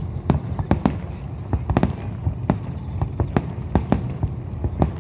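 Fireworks display over the sea: shells bursting in a rapid, irregular barrage of cracks and booms, several a second, over a continuous low rumble.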